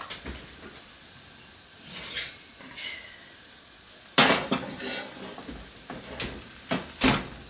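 Glass baking dish being pulled from a metal oven rack: a few light knocks, a sharp clatter about four seconds in and another loud clunk near the end. Under it, potatoes simmer faintly in water in a cast-iron skillet.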